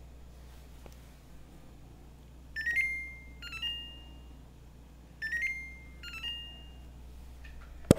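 Refrigerator's electronic alert chime sounding twice, each time a short rising tone and then a higher held note. A sharp click comes just before the end.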